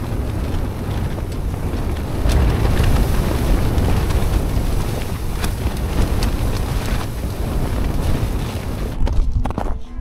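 Gale-force wind shaking a Coleman Touring Dome LX dome tent, its fly sheet flapping with a few sharp snaps, over a heavy wind rumble on the microphone. About nine seconds in this gives way to blizzard wind in the open.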